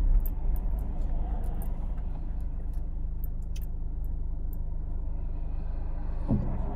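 Steady low rumble of a car's engine and tyres heard from inside the moving car, with a scatter of faint light clicks.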